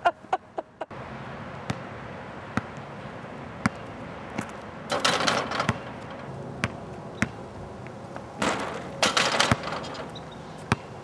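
Basketball bouncing on an outdoor asphalt court: scattered single sharp bounces, with two longer noisy bursts about five and eight and a half seconds in.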